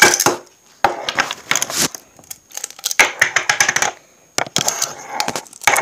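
Small ball magnets clicking and clattering against one another in four quick bursts of rapid clicks as they are handled, snapping together and being pulled apart.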